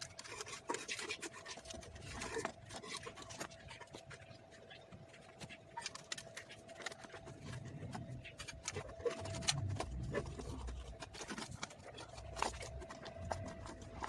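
Hand tools and switchboard parts being handled: scraping, rubbing and many small sharp clicks, with a few low knocks about two-thirds of the way through, over a faint steady hum.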